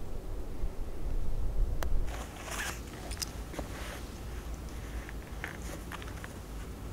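Low wind rumble on the microphone, louder for the first two seconds, then scattered faint crackles and rustles.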